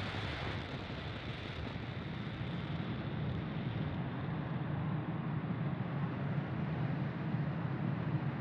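Falcon 9 first stage's nine Merlin 1D engines burning during ascent, heard as a steady, deep rumbling noise with a hiss above it. The highest part of the hiss fades out a few seconds in.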